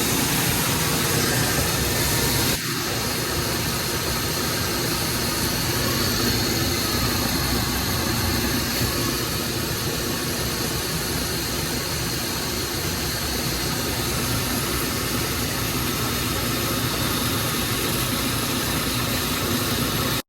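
Grain-handling machinery running steadily while harvested rice is loaded into a grain dryer.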